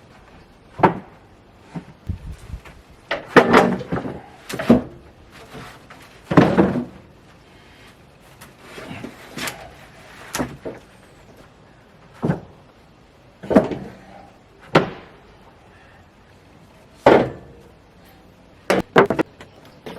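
Cedar boards being handled and stacked, knocking and clattering against each other in a dozen or so irregular wooden thunks, some single and some in short rattling clusters.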